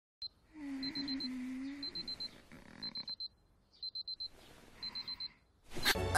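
Electronic alarm clock beeping: one short high beep, then quick groups of four beeps repeating about once a second. A low sleepy hum of a voice sounds under the first groups, and a sudden loud sound comes near the end.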